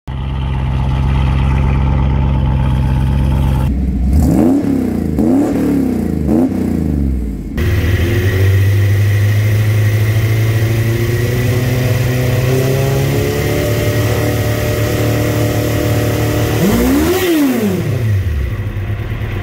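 Engines running and being revved: first a car's engine idling, then blipped three times, then a Suzuki GSX-R sport bike's inline-four engine running at a steady high idle, revved once up and back down near the end.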